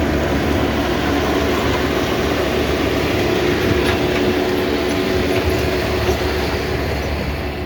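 Steady engine and road noise of a motor vehicle on the move, with a constant hum and low rumble, heard from inside the vehicle.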